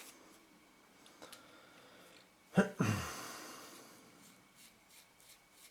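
A person's sigh about two and a half seconds in: a short low voiced start, then a breathy exhale that fades over about a second. Faint clicks and ticks from handling the small lens parts come before and after it.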